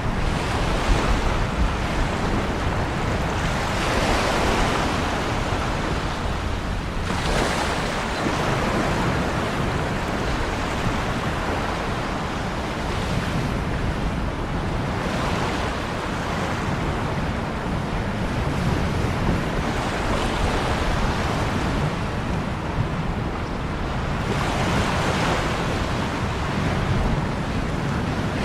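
Ocean waves breaking on a shore in continuous surf, each wave swelling into a broad rush and washing back, several seconds apart, under a steady low rumble.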